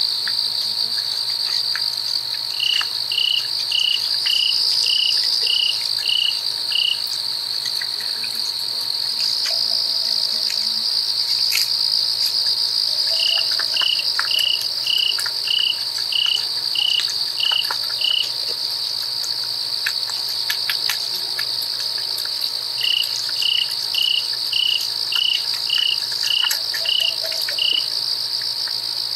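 Night insect chorus: crickets trilling steadily in a high pitch. Three times a second caller joins in with a run of about ten evenly spaced chirps, roughly two a second.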